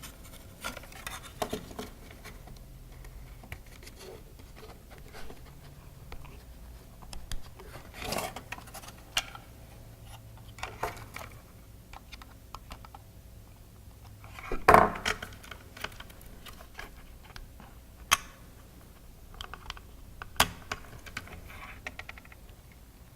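Scattered clicks, taps and light scraping of small robot-kit parts (motors, wooden motor mounts, screws) being handled and fitted together by hand, with one louder knock about fifteen seconds in.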